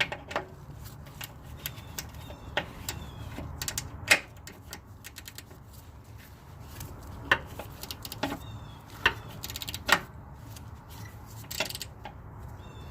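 A 14 mm ratchet working a sway bar bracket bolt from under the car: scattered metallic clicks and clinks, with a quick run of ratchet clicks about nine to ten seconds in.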